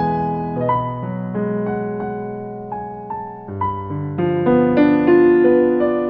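Slow solo piano music, with single notes and chords struck one after another and left to ring and fade.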